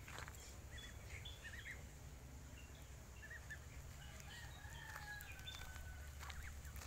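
Faint farmyard fowl calls: short chirps in the first couple of seconds, then from about four and a half seconds in a long drawn-out rooster crow that falls at its end.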